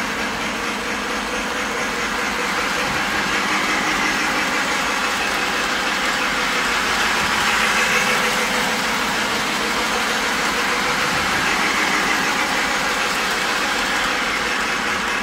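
Lionel Union Pacific Flyer LionChief O-gauge toy steam train running around an oval of track: steady motor and wheel noise on the rails, loudest about halfway through as the train passes close by.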